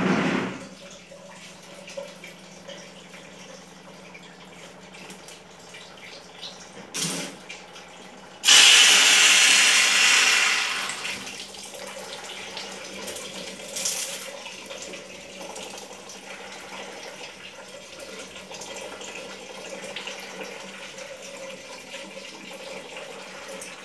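Water running through a Kent RO water purifier as it is tested, with a steady low hum underneath. About eight seconds in a loud rush of water starts suddenly and fades over a few seconds, then water keeps running steadily.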